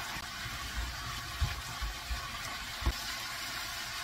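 Vegetables and minced meat sizzling in hot oil in a stainless steel frying pan: a steady hiss, with a couple of soft low knocks.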